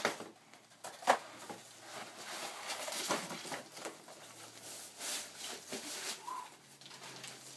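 Rustling and crinkling of a laptop's protective packing sleeve as the laptop is slid out and lifted, with a sharp knock about a second in.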